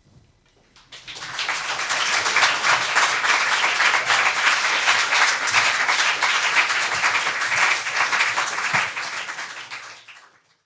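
Applause: many people clapping, swelling in about a second in and fading away near the end.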